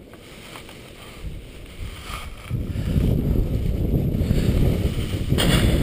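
Wind buffeting the camera's microphone, jumping to a loud low rumble about halfway through, with a brief rustling scrape near the end.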